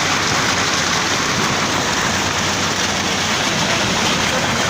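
Flood-swollen mountain stream rushing in spate: a steady, loud wash of water noise.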